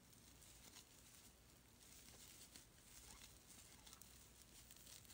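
Near silence, with faint light rustling and ticks from a crochet hook working fuzzy, glittery acrylic scrubber yarn.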